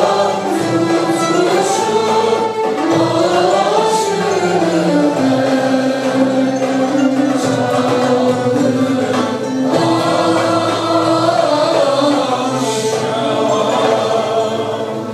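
Mixed choir singing Turkish classical music (Türk sanat müziği) in unison with a traditional ensemble of violin, cello, kanun and frame drum, with long held notes and slow melodic slides. The music winds down at the very end as the piece closes.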